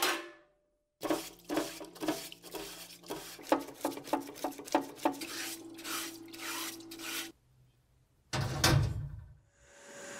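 A parts washer's solvent-fed brush scrubbing a metal casting: quick, repeated rubbing strokes over a steady low hum. Near the end a loud thud, then the steady rush of a blower starting up.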